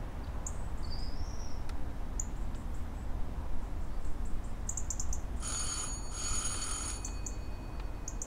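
Outdoor garden ambience: a steady low rumble with scattered short, high bird chirps. About five and a half seconds in, a loud high trill sounds in two bursts of under a second each.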